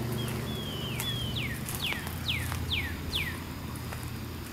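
A bird singing a run of about eight or nine clear whistled notes, each sliding down in pitch, about two a second, the later notes steeper and shorter. Under it is a steady low hum.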